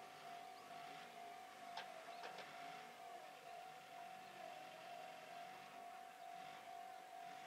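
Near silence: faint outdoor background with a steady high thin tone throughout and a few soft clicks about two seconds in.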